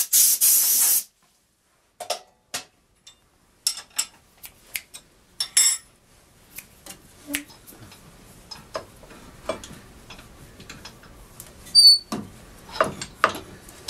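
Blasts of compressed air clearing wood chips from the coring cut, cutting off about a second in. Then scattered metal clicks and knocks as the coring tool is handled on its rest, with a few louder knocks near the end.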